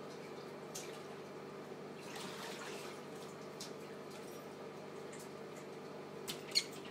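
Quiet room hum with a soft scuffle of a cat's paws. Near the end, two sharp taps close together as the cat pounces at its reflection and strikes the mirrored sliding closet door.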